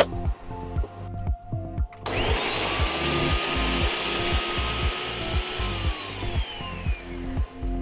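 Countertop blender motor starting about two seconds in, whining up to speed as it purées cooked tomatoes, onion and garlic into sauce, then winding down near the end with a falling whine. Background music with a steady beat plays underneath.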